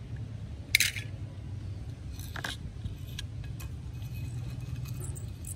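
Toy cars being handled on concrete: a sharp clack about a second in, the loudest sound, and a lighter click around two and a half seconds, over a low steady hum.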